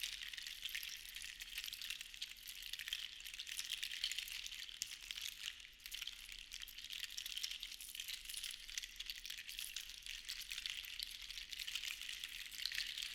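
Seashells rattling and clattering together: a continuous dense run of small hard clicks that swells and eases in slow waves, with a short lull about six seconds in.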